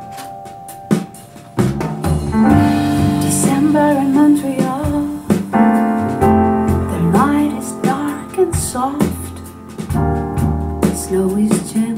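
A vocal song played back from a vinyl record through a hi-fi system: piano, then a singer coming in about two seconds in over the fuller accompaniment.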